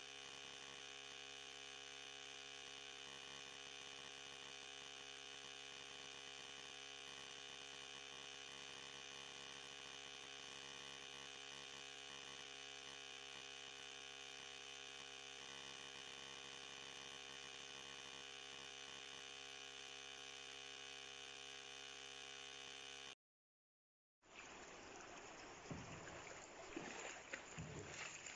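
Faint steady hiss and electrical hum with no distinct sound event, cutting out abruptly about 23 seconds in. After a moment of silence, floodwater is heard faintly flowing and lapping, uneven and splashy.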